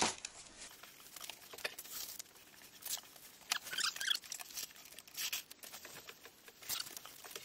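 Thin foil-faced insulation mat crinkling and rustling as it is handled and pressed down by hand, with the backing paper of double-sided tape being peeled off. Faint scattered rustles, with a few louder crinkles in the middle.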